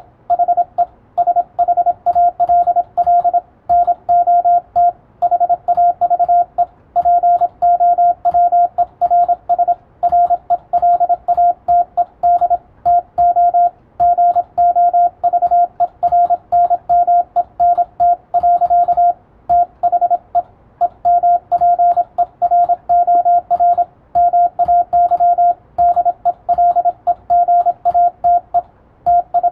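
Morse code as a single mid-pitched beeping tone, keyed in a continuous run of short and long elements spelling English plain text. A computer keyboard clatters softly underneath as the code is copied by typing.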